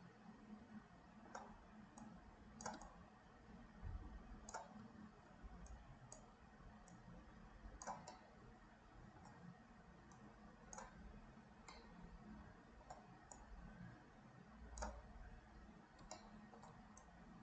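Faint, irregular clicks of computer mouse buttons, roughly one a second and some in quick pairs, over a low hum.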